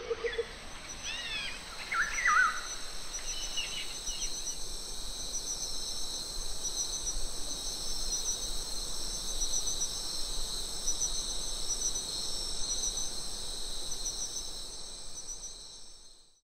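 Tropical evening insect chorus: a dense, steady, high-pitched trill with a fine pulsing texture. A few repeated bird calls come in the first four seconds, and the chorus fades out just before the end.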